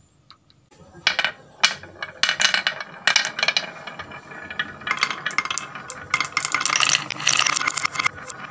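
Marbles rolling down wooden marble-run tracks, clicking and clacking against the wood and each other. Quiet for about the first second, then separate clacks that thicken into a dense rattle in the second half.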